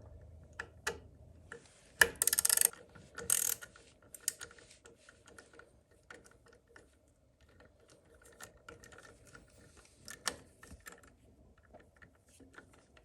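Ratchet with an Allen bit clicking in two short runs, about two seconds in and again a second later, then scattered small tool clicks, as the Allen bolt clamping a motorcycle shifter lever is worked loose.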